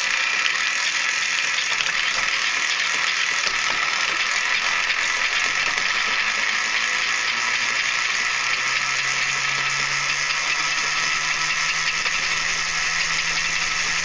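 Electric bike hub motor running at speed under power, driving the chain with the chain rubbing against the frame: a steady, a little loud mechanical running noise. A low hum comes in about halfway through and rises slightly in pitch.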